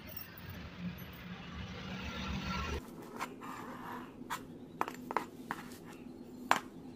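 Sharp metal-on-metal clicks and clinks from a homemade lever-type bending jig as a thin steel strip is set against its roller and the rebar-handled lever is worked, about half a dozen separate clicks with the loudest near the end. Before them, a steady background rush cuts off suddenly nearly three seconds in.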